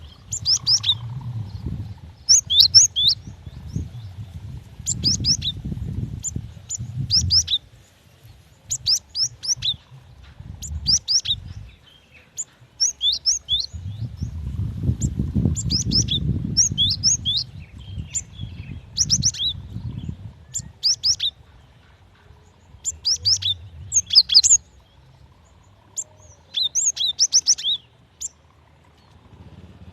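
Female cinereous tit (gelatik batu) calling for a male: tight groups of two to four quick, high, falling notes, repeated every second or two. A low rumble comes and goes underneath.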